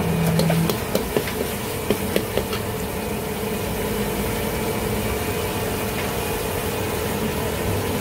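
Metal ladle clinking and scraping against a steel wok a handful of times in the first two seconds or so, while dried chilies and garlic are stir-fried, over a steady rushing noise.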